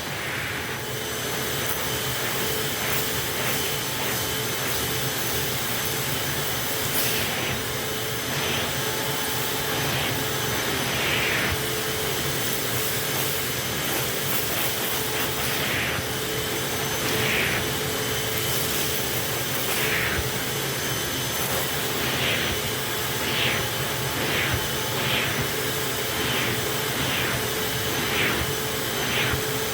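Hoover WidePath Fold Away upright vacuum cleaner running steadily, its motor hum even throughout, with short high chirps repeating about once a second in the later part.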